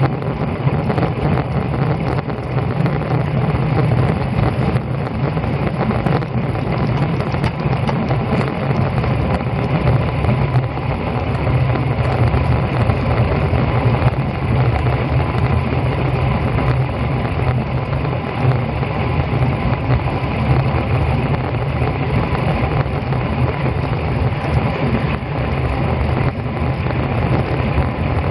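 Wind buffeting a bike-mounted camera microphone on a road bike moving at about 30 mph: a loud, steady, low rushing rumble.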